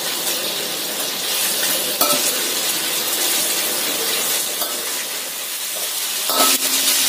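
Chicken pieces sizzling steadily as they fry in hot oil in a wok, with a metal spatula scraping and clinking against the wok as the pieces are turned over; one sharp clink about two seconds in.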